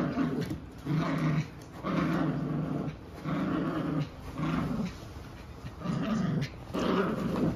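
Puppies play-growling during a tug of war over a toy: a run of short, pitched growls, about one a second.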